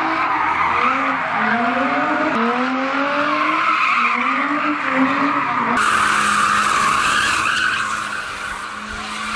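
Car engines revving hard with tyres screeching as cars spin donuts in burnout smoke. The engine pitch climbs in steps over the first half. About two-thirds of the way through it switches abruptly to an engine held at a steady high rev under a continuous tyre squeal.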